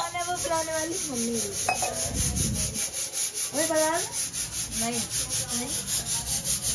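Voices calling 'chai' in a sing-song, over a fast, even rasping rhythm of about six strokes a second.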